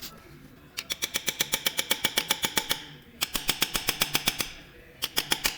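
Rapid metallic clicking from a hand tool worked on the engine, about ten clicks a second, in three bursts with short pauses between them.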